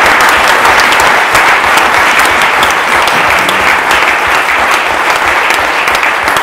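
A large audience applauding steadily, a dense mass of hand claps.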